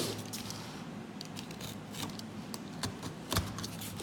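Cutting open a cardboard box: a series of short, irregular snips and clicks, the sharpest a little after three seconds in.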